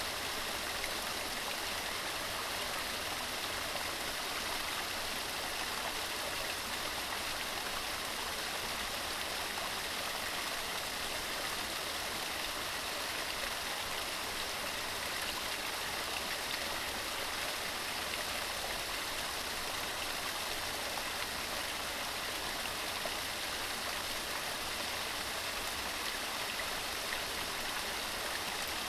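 Fast mountain stream running over rocks: a steady, even rush of water with no changes.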